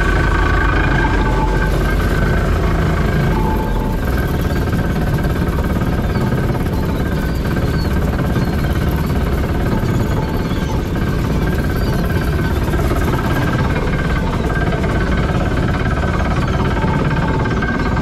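Shrimp trawler's diesel engine and deck winch running steadily while the trawl nets are hauled in.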